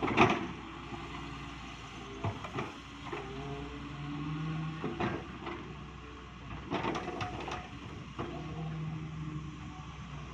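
Solar 130 wheeled excavator's diesel engine running under hydraulic load while the bucket digs and lifts dirt, with knocks and clanks from the bucket and arm, the loudest just after the start. The engine note swells twice as the arm works.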